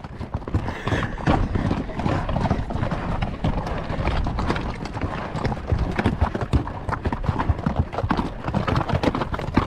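Horses' hooves striking the trail in a dense, irregular clip-clop as several horses climb a steep trail.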